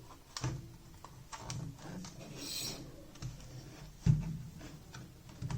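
Light clicks and knocks of hard 3D-printed plastic parts being handled, with one louder knock about four seconds in and a brief rustling hiss near the middle.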